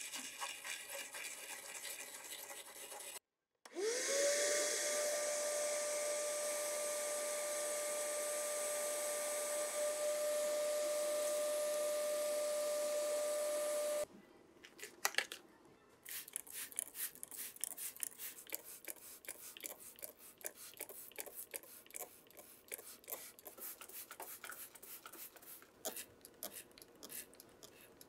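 A small bristle brush scrubbing the radio cabinet in quick scratchy strokes. After a brief gap a small electric motor spins up and holds a steady whine for about ten seconds, then cuts off sharply. A few clicks follow, then more brushing through foaming cleaner.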